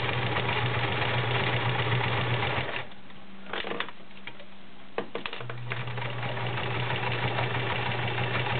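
Kenmore Model 1931 sewing machine running, stitching through five layers of denim with a steady motor hum. It stops about three seconds in, a few light clicks follow while the fabric is handled at the needle, and it starts again about two seconds later and runs on.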